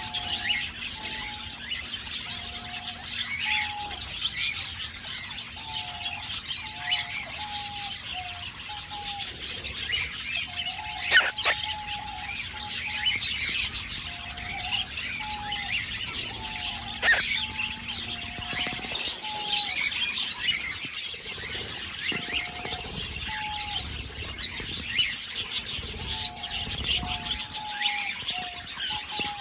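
Aviary birds chirping and twittering continuously, with a lower call of short two-pitched notes repeating about once a second. Two sharp knocks against the microphone stand out near the middle.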